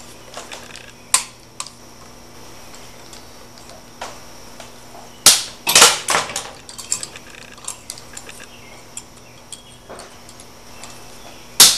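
Hand tools clicking and clacking while electrical cable is trimmed. There are sharp metallic snaps, one about a second in, a loud cluster at about five to six seconds, and another near the end, with scattered small ticks between them.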